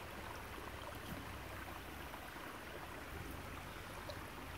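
Shallow creek water running steadily over stones.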